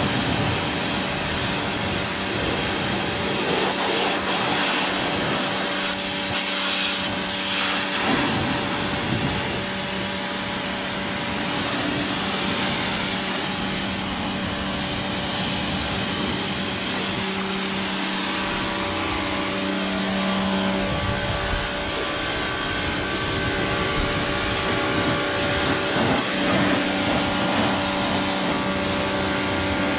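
Pressure washer running with a steady hum under the hiss of its water jet as it sprays down the front grille and tyres of a side-by-side UTV.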